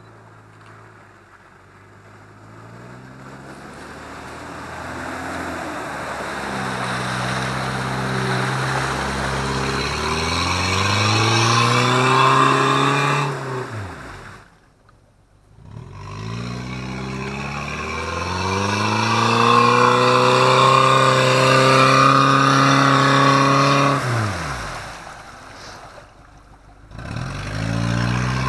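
Off-road 4x4 engine revved hard in long pulls, the pitch climbing for several seconds, then falling away sharply; this happens twice, and it starts climbing again near the end.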